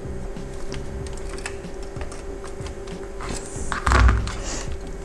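Small metallic clicks and taps of needle-nose pliers working the bent-over metal display-locking tabs on a car instrument-cluster circuit board, straightening them. About four seconds in there is a louder thump as the pliers are moved away.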